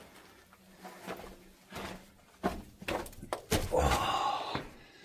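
A series of separate knocks and thumps, then a louder scraping sound lasting about a second, roughly three and a half seconds in.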